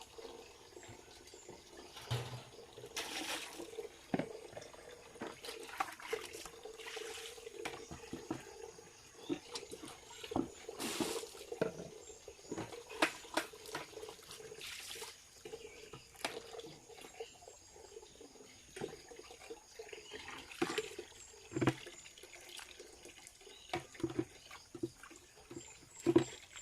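Spring water running and splashing, with irregular sharper splashes and knocks throughout.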